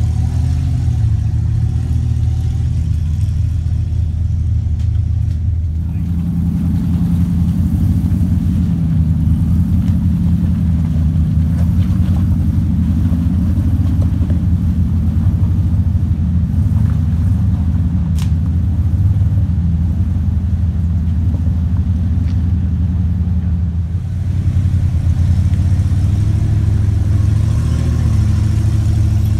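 Off-road Jeep engines running under load as they crawl up steep rocky trails, the note wavering with the throttle. The engine sound changes abruptly about six seconds in and again about four-fifths of the way through.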